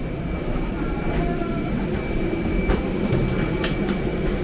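Steady rumble and hum of a parked Airbus A320 heard at its boarding door from the jet bridge, with thin steady whining tones above it. A few sharp clicks and knocks come about three seconds in.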